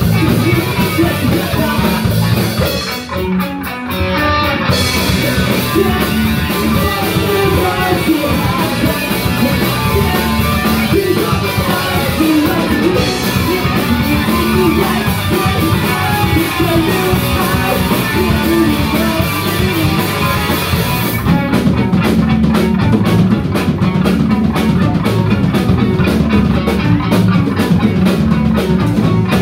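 Live punk/emo rock band playing a song: a singer over distorted electric guitar, bass guitar and drum kit, loud and amplified, with a short break in the drums about three seconds in.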